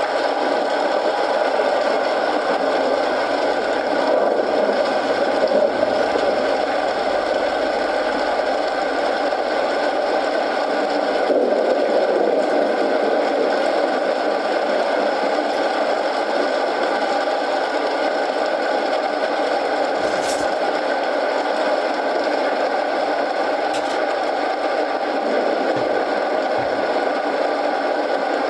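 Steady rain hiss mixed with a wood fire burning, with occasional crackles and pops from the burning logs, one sharp pop about twenty seconds in.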